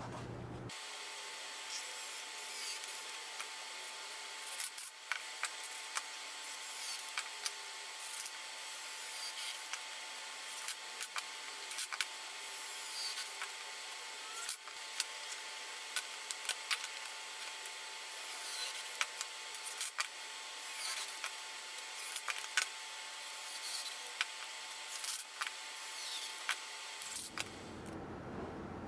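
Thin plywood strips and frame parts being handled: wood rubbing and sliding against wood, with scattered light clicks and taps, over a faint steady hiss.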